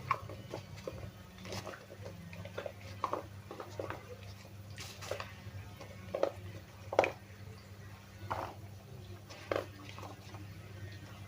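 Irregular light knocks and clicks, about a dozen, the sharpest about seven seconds in, over a steady low hum.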